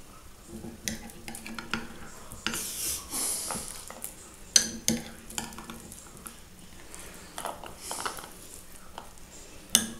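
A spoon scooping canned green peas out of a glass jar and stirring them into a bowl of diced salad: scattered sharp clinks of the spoon on jar and bowl with soft wet scraping between.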